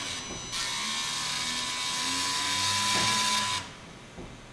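Small electric propeller motors on a robotic blimp's gondola whirring with a thin steady whine, driven by the phone's tilt control. They drop out briefly just after the start, run again, and stop about three and a half seconds in.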